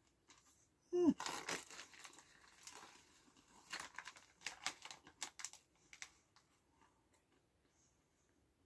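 Plastic crisp packet crinkling and rustling as a hand rummages inside it for crisps, with sharp crackles strongest in the first half and fainter rustles toward the end. A brief voiced sound about a second in.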